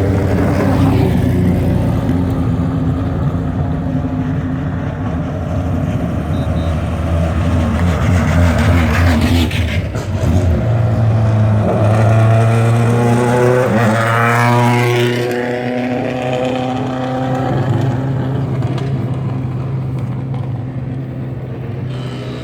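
Hill-climb race car engines driving past at low speed on the descent, running steadily; about ten seconds in a different engine note takes over, and a few seconds later an engine's pitch rises and falls as it revs or passes.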